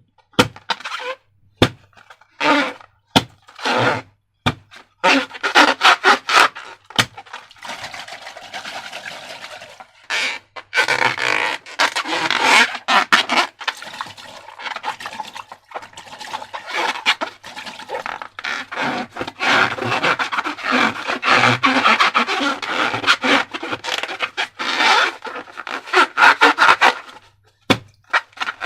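Slime and rubber balloons being handled and squeezed. A few sharp clicks and short squelches come first, then a nearly unbroken squishing and crackling that stops shortly before the end.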